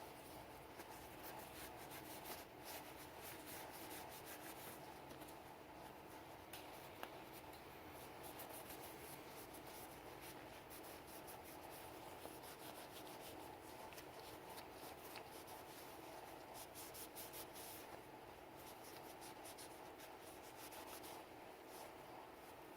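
Faint rubbing and scratching of a Sig Sauer P320 pistol being cleaned by hand, with many small scratchy clicks over a steady faint hum.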